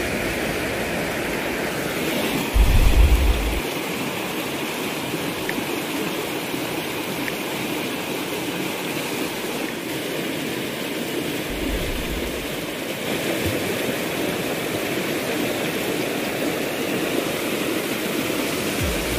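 Steady rushing water of a waterfall and stream. A brief, loud low rumble comes about three seconds in, and a softer one around twelve seconds.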